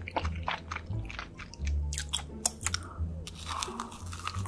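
Close-miked chewing and biting of crunchy fried cheese balls, with many sharp crunching clicks, over quiet background music.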